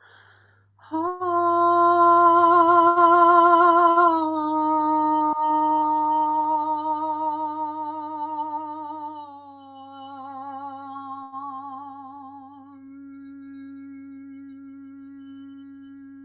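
A woman's voice toning in an energy-healing session: long held notes with vibrato. A higher note starts about a second in, steps down slightly about four seconds in, then drops to a lower, quieter note held from about nine seconds on.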